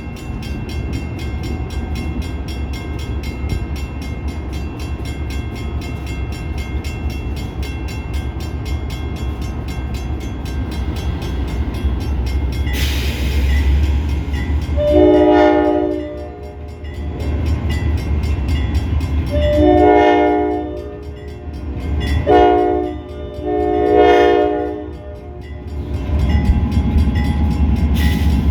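Railroad locomotive running past with a steady low rumble, then sounding its air horn in two long blasts, one short and one long: the standard grade-crossing signal. A short hiss comes just before the horn.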